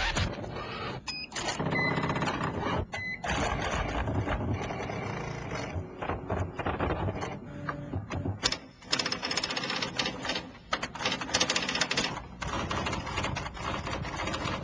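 Clattering machinery and typing on a keyboard: dense mechanical noise full of rapid clicks, with a few short beeps in the first few seconds.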